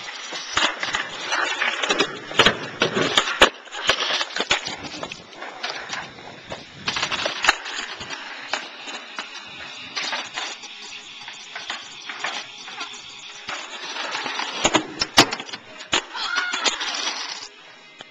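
Skateboard wheels rolling on a concrete driveway, broken by several sharp clacks of the board being popped and landing on the concrete.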